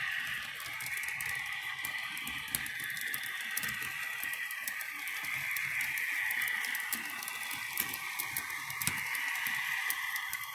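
HO scale model train cars rolling past on the track: light, irregular clicking of small wheels over rail joints, with a steady high whine that swells and fades.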